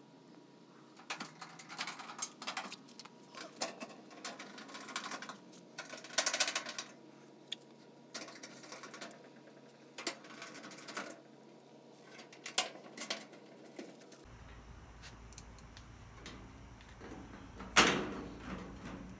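Irregular clicks, scrapes and light rattles of a clothes dryer's sheet-metal back panel being handled and fitted back in place, with one sharp metallic knock near the end.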